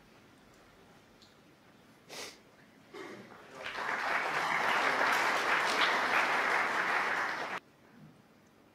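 Audience applauding, starting about three and a half seconds in and cutting off abruptly near the end, after two brief clicks.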